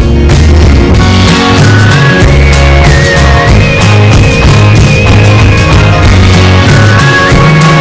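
Loud background music with a steady bass line and a high lead line that steps between held notes, coming in suddenly at the start.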